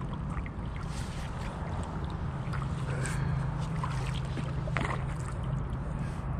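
Kayak gliding on calm canal water, with small laps, drips and trickles of water against the hull and a steady low hum underneath.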